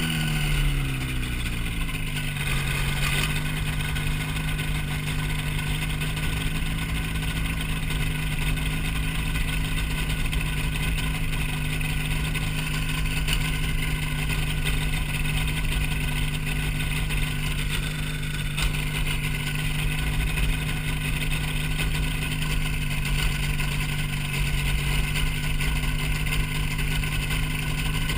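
Hy-Tek Hurricane ultralight's engine and propeller running in flight: the engine note falls over the first two seconds or so, then holds steady.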